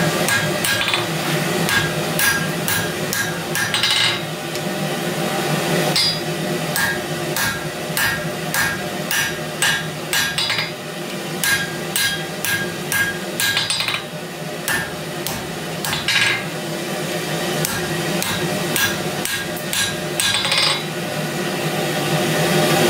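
Hand hammer striking red-hot round steel stock on an anvil, forging the flat jaw of a pair of tongs: runs of blows about two to three a second with short pauses, the anvil ringing after each blow. A gas forge burner runs steadily underneath.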